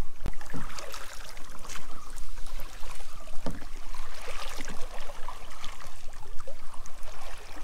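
Kayak paddles dipping and pulling through the water, with irregular splashes and water trickling off the blades.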